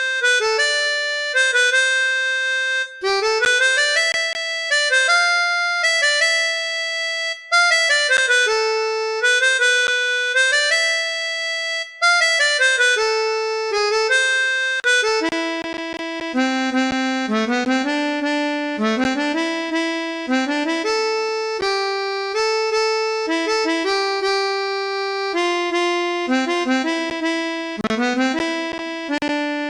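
Chromatic harmonica playing a practice melody in short phrases of held notes, drilling F sharp. There are brief breaks between the early phrases, and after about halfway the line moves lower with quicker notes.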